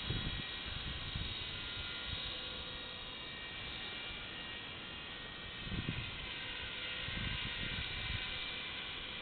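HobbyKing HK-250 GT electric RC helicopter in flight: a steady high whine and buzz from its electric motor and spinning rotors, drifting slightly in pitch as it manoeuvres. A few low rumbles come through near the start and again about two-thirds through.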